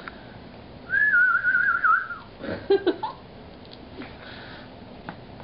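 A pet dog whining: one high, wavering whine of just over a second, then a few short, sharp sounds. Typical of a dog fretting over its owner's pretend distress.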